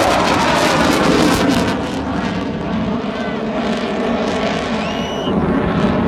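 Aircraft engine noise from a display plane flying over, a loud steady drone that eases off a little about two seconds in. A short rising whistle-like chirp comes near the end.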